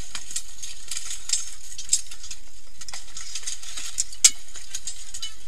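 Steel weapons, shields and plate armour clanking and clattering in a mass armoured melee, with scattered sharp metal strikes, the loudest a little over four seconds in.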